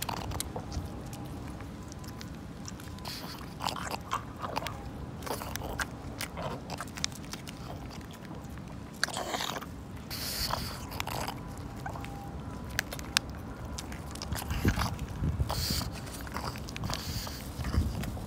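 A pug biting and chewing a chicken-stick dog treat held in a hand, with irregular crunching bites and mouth clicks.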